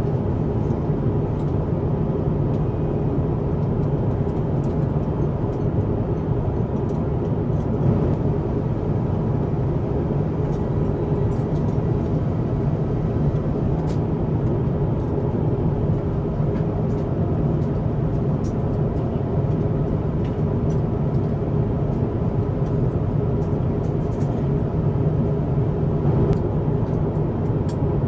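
Steady low rumble of an Airbus A350-1000's cabin in flight, the constant roar of air and engines, with a few faint small clicks.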